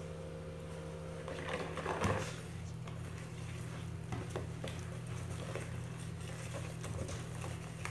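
Wire whisk mixing flour into batter in a plastic bowl, with faint irregular clicks and scraping. A knock about two seconds in.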